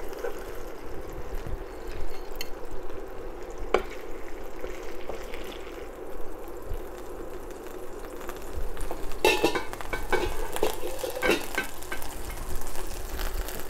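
Chicken thighs and their juices sizzling gently in a non-stick skillet as metal tongs lift them out. A few sharp clicks of the tongs on the pan, then a burst of clinks and scrapes about nine to eleven seconds in.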